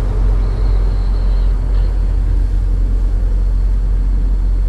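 Steady low rumble of a semi truck's diesel engine, heard from inside the cab as the truck moves slowly.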